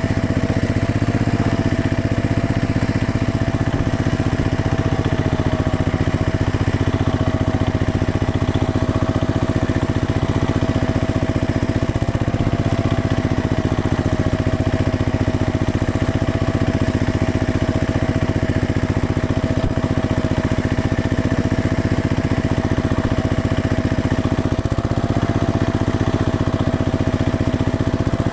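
A heavy machine's engine running steadily at constant speed, with a steady whine above the engine.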